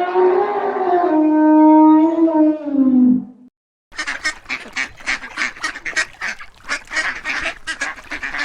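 A long, loud, pitched animal call ends with a falling pitch about three seconds in. After a short silence, a flock of ducks quacks rapidly and continuously.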